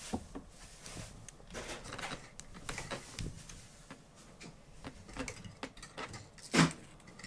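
Kittens scrambling on a wooden cat bed and its ladder: scattered light knocks, taps and scuffs of paws and claws on wood, with one louder thump about six and a half seconds in.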